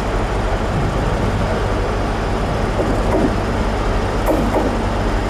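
Steady low drone of a Class 43 HST power car's diesel engine idling, with train noise from an approaching Pendolino electric train. A few short, high squeaks come near the end.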